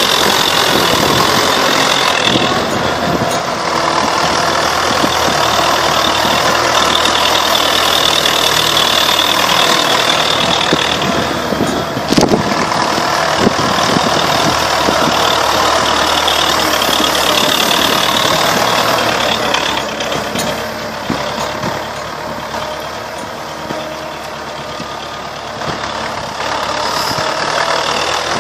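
Universal 650 M tractor's four-cylinder diesel engine running steadily. It has a sharp knock about twelve seconds in and runs somewhat quieter for several seconds about two-thirds of the way through.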